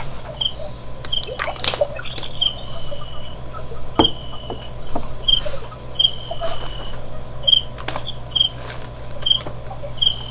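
Outdoor ambience: short high chirps repeating about once a second, a couple of them drawn out into a level whistle lasting about a second. Sharp clicks come now and then, the loudest about four seconds in, over a steady low hum.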